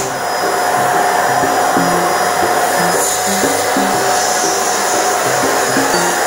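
Electric balloon pump running steadily, its blower inflating two balloons at once through its twin nozzles.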